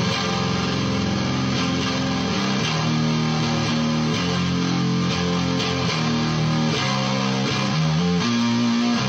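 Electric guitar played through a FuzzCo fuzz pedal: a riff of held notes that change every half second or so, with a thick, steady fuzz tone that does not die away between notes.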